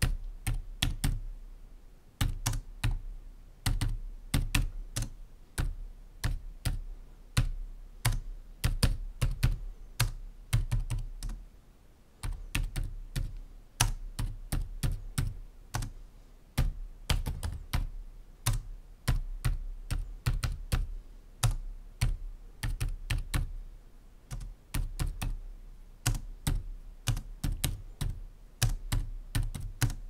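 Built-in keyboard of a Dell Inspiron 15 3000 laptop typed slowly by hunt and peck with the index fingers, keys struck a little harder than needed: irregular key clicks, a few a second, with short pauses now and then.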